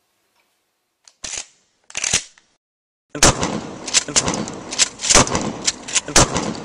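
Gunfire sound effects: two short bursts, then from about three seconds in a dense, uneven string of shots over a continuous noisy bed.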